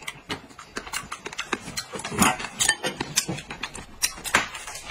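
Close-up eating sounds: kernels of boiled corn on the cob being bitten off and chewed, a quick, uneven run of small crisp clicks.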